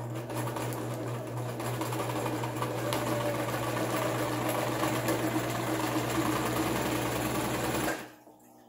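Brother home sewing machine running steadily, stitching a seam through ironing-board fabric around a mouse pad. It picks up a little speed over the first couple of seconds, then stops abruptly near the end.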